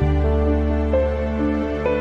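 Background music: held notes over a steady bass, with a new chord coming in at the start and the melody moving to a new note about a second in and again near the end.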